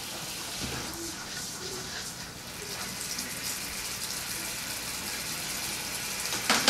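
Beer and chicken-stock sauce boiling hard in a sauté pan as it reduces, a steady hiss. A brief knock near the end.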